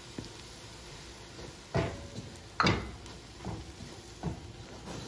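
A spatula knocking and scraping against the pot about five times as it stirs flour into butter-fried onion and carrot to make a roux, the loudest knock about two and a half seconds in, over a faint sizzle.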